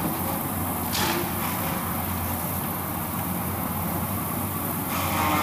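Excavator-mounted disk grinder (brush mulcher) at work: the machine's engine runs with a steady low drone. Short bursts of hiss come about a second in and again near the end.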